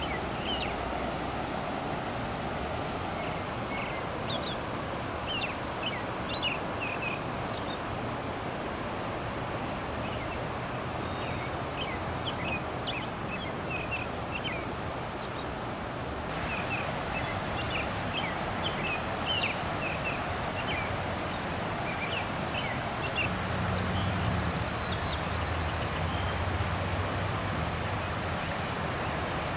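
Swollen Chippewa River floodwater rushing steadily, with small birds chirping repeatedly over it.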